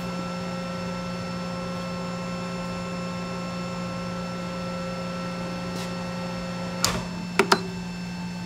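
CNC lathe standing with its spindle stopped, its drives and pumps giving a steady electrical hum with several held tones. About seven seconds in, one of the tones cuts off and three sharp clacks follow.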